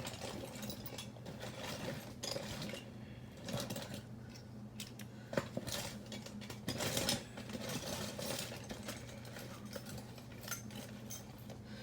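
Metal hand tools clinking and rattling in irregular knocks and clicks as someone rummages for a 5/16-inch nut driver, over a faint steady low hum.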